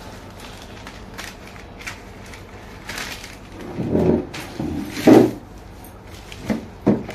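Newspaper sheets rustling and crinkling as they are folded into strips and pressed flat by hand on a hard floor, with two louder rustles about four and five seconds in.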